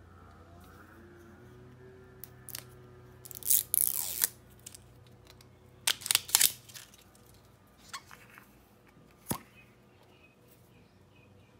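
Sauce bottle being handled and opened: scattered sharp clicks and two short bouts of crackling, rustling noise, loudest about four and six seconds in.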